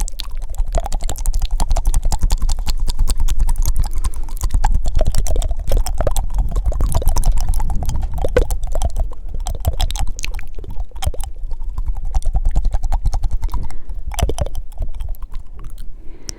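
Fast, wet mouth sounds very close to the microphone: rapid tongue clicks and flutters, many a second, over a low rumble of air on the mic, thinning out near the end.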